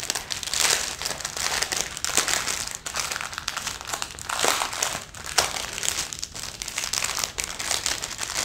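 Clear plastic bags crinkling and rustling as they are handled and opened, in uneven bursts with many small crackles.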